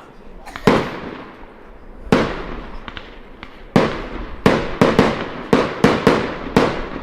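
Firework battery (cake) firing shots of titanium gold palm and coloured-tip effects: about ten sharp bangs, each with an echoing tail. They come irregularly and quicken in the second half, with a few fainter pops between them.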